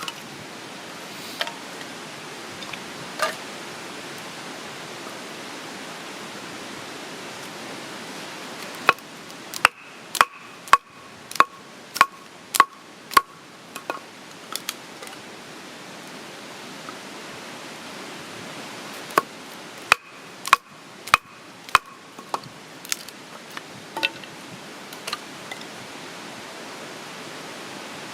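Two runs of sharp chopping knocks, about two a second, over a steady hiss.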